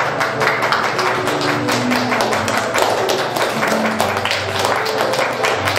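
An audience clapping, many quick overlapping claps, over music with short held notes.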